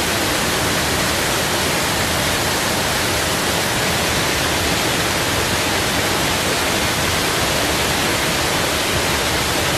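Water pouring over a man-made waterfall: a loud, steady rush.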